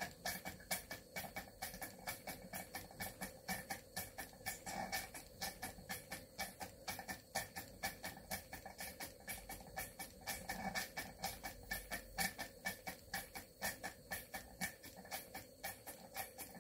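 Model steam beam engine (Cotswold Heritage Cirrus) running steadily under load, driving a Baker fan by a belt, with a quick, even chuffing beat of several exhaust puffs a second from its exhaust piped into a chuff pot.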